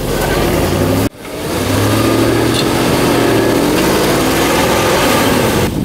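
Engine of a modified ZIL-131 6x6 trial truck working under load, its pitch rising and falling as the throttle is worked. About a second in, the sound cuts out abruptly and comes back.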